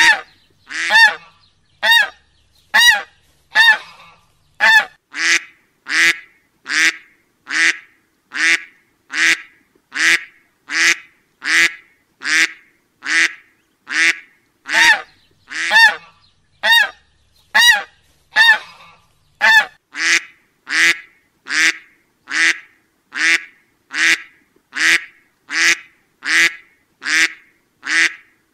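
A duck quacking over and over: short nasal quacks, evenly spaced at a little faster than one a second.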